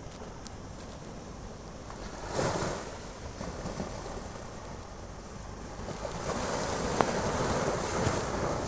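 Sea waves washing onto a beach, with wind on the microphone. A wave surges about two and a half seconds in, and the wash grows louder from about six seconds on.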